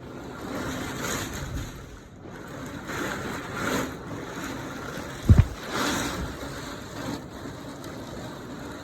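Rain squall with 40 mph wind gusts: a steady rush of wind and rain that swells and falls in several gusts, with one brief, loud low thud a little over five seconds in.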